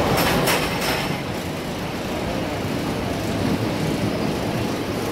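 Roller coaster train rolling along its track, its wheels giving a steady rumble with a few short, sharp sounds in the first second.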